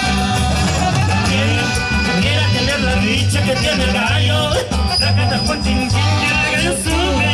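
Live band music from a Mexican dance band, with saxophones, guitars, bass and drums, playing over a steady, pulsing bass beat.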